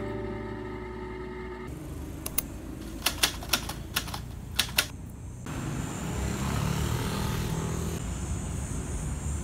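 Typewriter key-strike sound effect: about nine sharp clacks at uneven spacing over two and a half seconds, one per letter as a title types itself out. It is followed by the steady low rumble of city street traffic.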